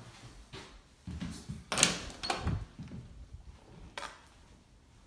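A few knocks and clicks from handling at a bathroom sink vanity. A cluster starts about a second in and is loudest near two seconds, then one more sharp click comes near four seconds.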